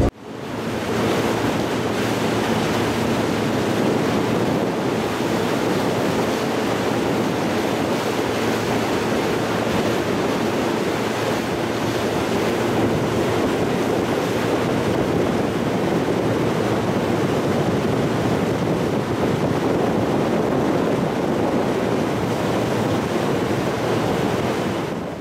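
Steady rushing noise of small wind-driven waves on open river water, with wind on the microphone; it fades in at the start and fades out near the end.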